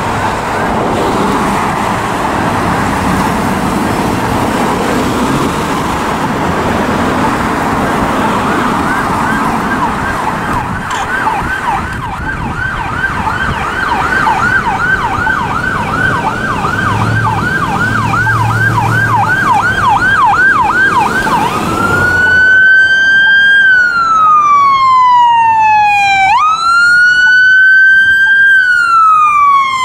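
Emergency vehicle's electronic siren over passing traffic: a rapid yelp, about three sweeps a second, grows louder, then about two-thirds through switches to a slower wail that rises sharply and falls slowly, loud and close.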